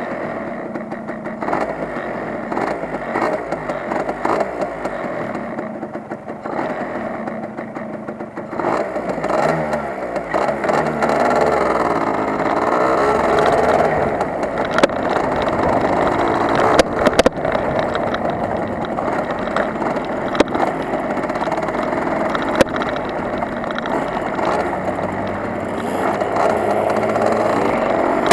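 Yamaha RD 80 LC's small two-stroke single-cylinder engine running close to the microphone, idling at first and then, from about a third of the way in, revving up and down in repeated rising and falling sweeps as the bike moves off. A few sharp clicks come about two-thirds of the way through.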